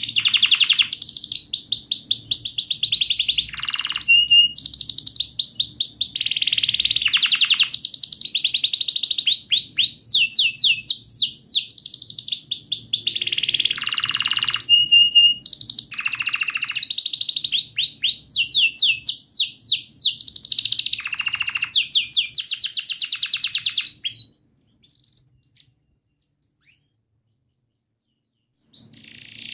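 Domestic canary singing a long, loud song of rapid rolling trills and repeated chirps. It breaks off about three-quarters of the way through, leaving a few faint notes and a pause, and starts again at the very end.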